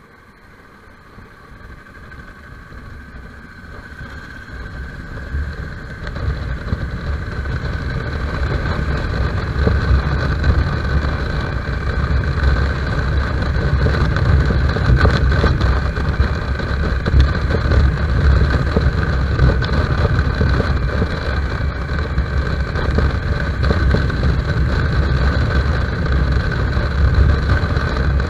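Motorcycle engine running with wind rush on the rider's camera. It grows steadily louder over the first ten seconds or so as the bike pulls away and gathers speed, then holds at a steady cruise.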